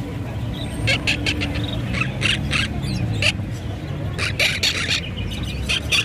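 Small parrots (cockatiels, lovebirds and conures) crowded together in a box, calling in repeated clusters of short, high-pitched calls about every second.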